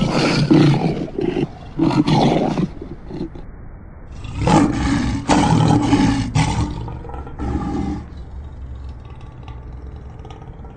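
A lion roaring, about four roars in a row, the longest from about four to nearly seven seconds in, then quieter.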